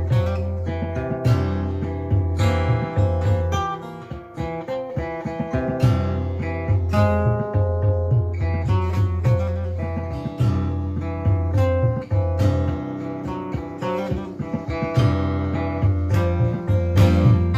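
Acoustic guitar music, plucked and strummed, over a pulsing bass line.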